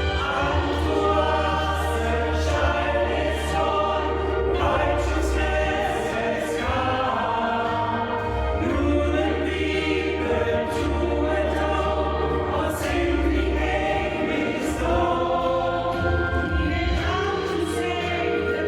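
Choir singing a Christmas song with words, several voice parts together, over low notes held underneath.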